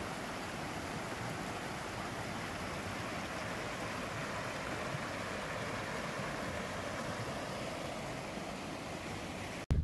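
Mountain creek rushing over rocks: a steady, even rush of whitewater.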